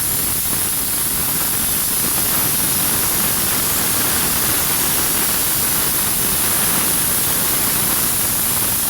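Steam gun of an LPG-fired mobile steam car washer spraying, a loud, steady hiss. The machine is in its first minute of running, when the gun puts out hot water and steam before dry steam.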